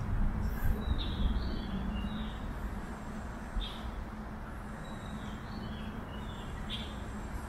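Outdoor city street ambience: a steady low rumble of traffic with a faint hum, and a few short high bird chirps about a second in and again near the end.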